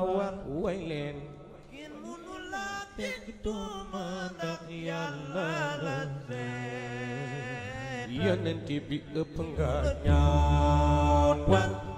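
A voice chanting Islamic devotional verses, drawing out and bending long melodic notes. It grows louder in the last few seconds, with a deep low sound beneath it.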